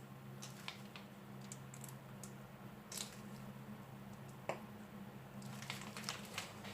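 Faint squishing of choux pastry dough being squeezed from a piping bag onto parchment paper, with a few soft clicks over a low steady hum.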